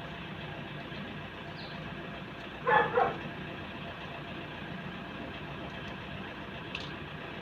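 A dog barks twice in quick succession about three seconds in, over a steady machine hum.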